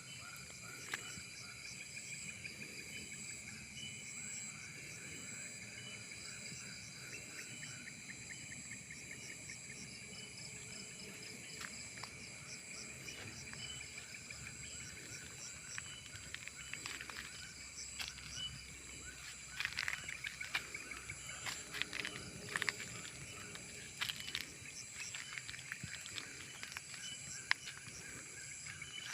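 Tropical forest insect chorus: several layers of crickets or cicadas buzzing and trilling in rapid pulse trains at different pitches. Irregular clicks and rustles join in during the second half.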